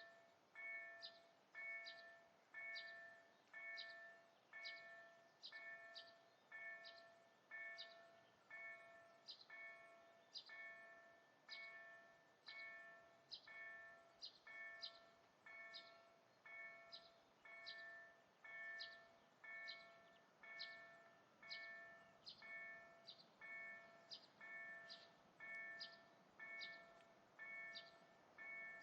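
Level-crossing warning bell ringing steadily and faintly, a little over one stroke a second, each stroke a short bell-like ding that dies away before the next: the crossing signal is active, warning of an approaching train.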